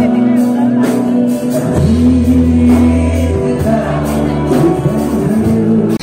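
Live band music with a male singer singing into a microphone, over a steady bass line and a regular drum beat.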